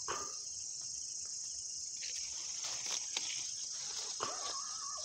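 Steady high-pitched chorus of night insects, with a few faint rustles.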